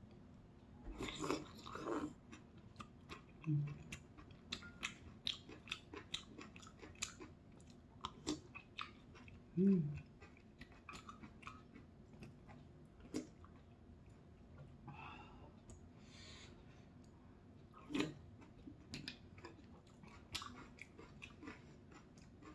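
Close-miked wet chewing of udon noodles and kimchi, with many small mouth clicks. Noodles are slurped about a second in, and there are two short closed-mouth hums.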